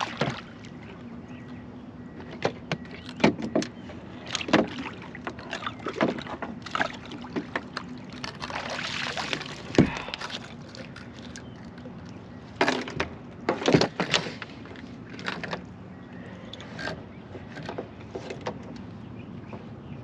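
Scattered knocks, clicks and clatter of handling on a fishing boat, over a steady low hum, with one sharper thump about halfway through.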